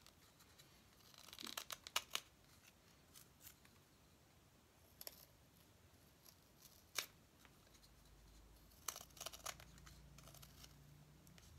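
X-Acto-bladed knife slicing shavings off a laminated plywood propeller blank: faint, scattered crisp cuts, a small cluster about a second in, single ones in the middle, and a few more near the end.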